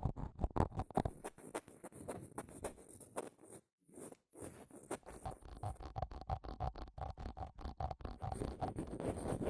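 ASMR 'skull sound' scraping: quick, repeated scratching strokes across the microphone, made to sound like scratching the skull, back of the head and crown. There is a brief pause about four seconds in.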